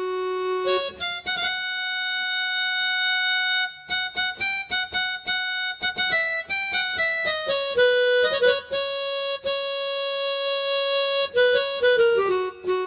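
Casio CTK-2550 electronic keyboard playing a slow single-note melody on one of its built-in sustained tones, with a long held note about a second in and another in the second half.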